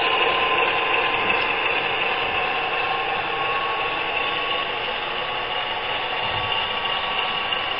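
HO scale model freight train rolling past: a steady whirring rumble of the covered hopper cars' wheels on the rails, slowly fading.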